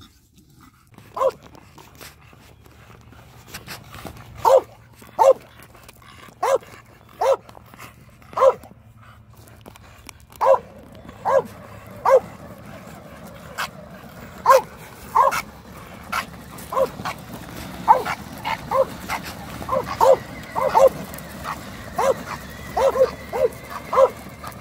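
English bulldog barking in short single barks, spaced out at first and coming faster, about two a second, in the second half.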